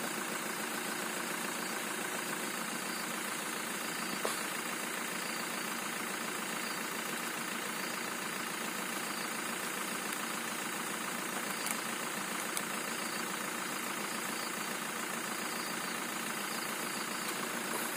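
Vehicle engine idling steadily, with a few faint knocks.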